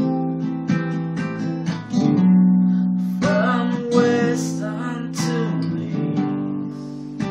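Acoustic guitar strummed steadily, chords ringing on between strokes in a bathroom's reverberant acoustics.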